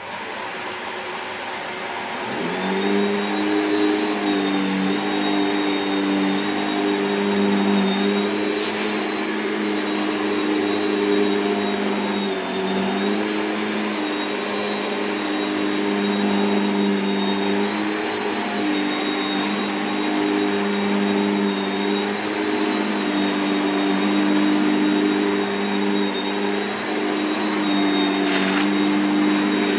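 Shark Powered Lift Away NV681UKT upright bagless vacuum switched on, its motor spinning up over the first few seconds, then running steadily at maximum suction with a thin high whine. It is pushed across carpet, and its pitch dips slightly now and then.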